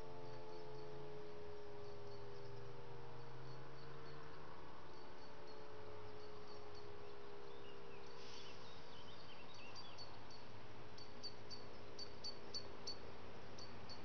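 E57 electric motor siren running down at the end of its steady all-clear (Entwarnung) tone: a fading wail, slowly falling in pitch, that dies away about halfway through. Short high bird chirps come through over it, more of them near the end.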